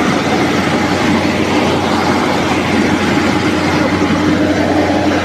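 NG 25D combined rice milling machine running steadily: a loud, even machine noise over a constant low hum.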